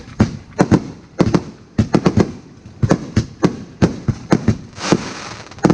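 A large bank of Roman candles firing: an irregular run of sharp pops and bangs, about three a second.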